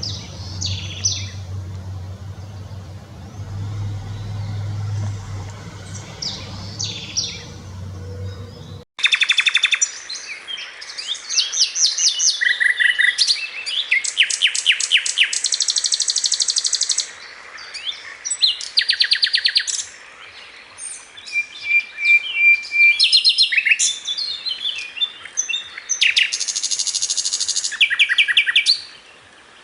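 A songbird singing in rapid high trills and runs of repeated notes. For about the first nine seconds a low steady rumble of traffic sits under a few faint chirps, then the recording cuts abruptly to clear song.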